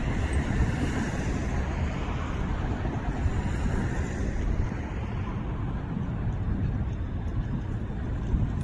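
Steady city street traffic noise, a continuous low rumble with no distinct events.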